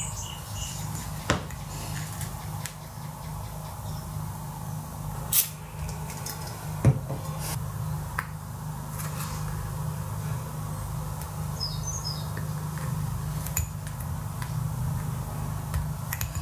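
Small metal parts, an aluminium cylinder and copper wire, handled on a wooden table: scattered light clicks and metallic taps, three of them sharper in the first seven seconds, over a steady low hum.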